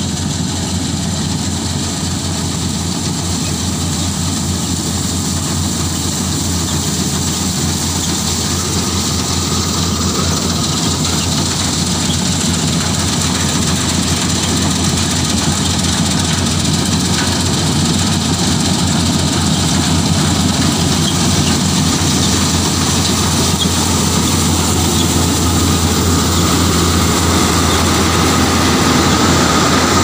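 Combine harvester cutting wheat: its diesel engine and turning header running steadily under load. The sound grows slowly louder as the machine draws close.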